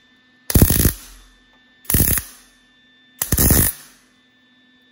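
MIG welder arc firing in three short bursts, each about half a second and about a second and a half apart, as coat hanger wire is stitch-welded into a pinhole in a steel engine oil pan. The wire adds filler so the thin pan does not burn through.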